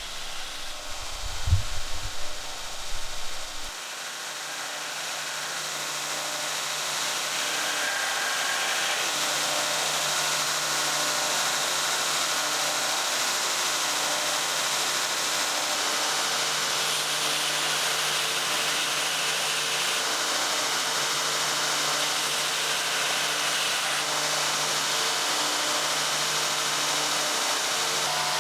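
A power tool running steadily: a hissing whir that builds up over a few seconds and then holds even. A few low knocks come just before it near the start.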